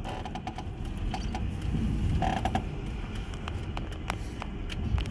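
Inside a slowly rolling truck's cab: steady low rumble from the truck, with scattered creaks and clicks from the cab and a brief squeak about two seconds in.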